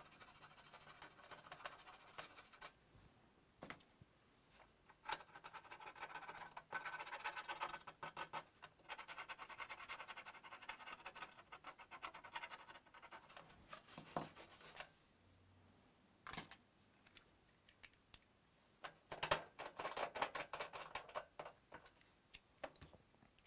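Faint scrubbing of a PS4 hard drive as it is cleaned: quick rubbing strokes in two long spells, with scattered sharp clicks and taps between them.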